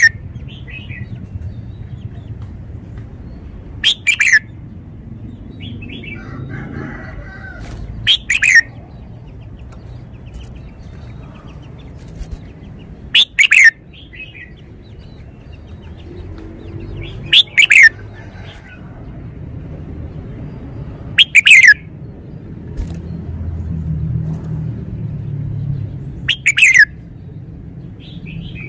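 Red-whiskered bulbul singing six short, loud phrases about four seconds apart, each a quick run of notes falling in pitch. Fainter chirps come between the phrases over a low background rumble.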